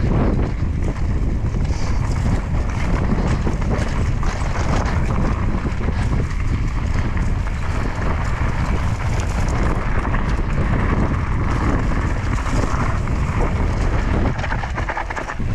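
Wind buffeting the microphone of a mountain biker riding a trail, a loud, steady rumble, with the bike's tyres and frame giving many short knocks and rattles over the rough ground.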